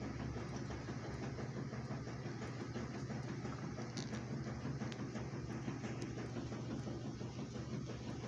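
Steady low motor hum with a couple of faint clicks about four and five seconds in.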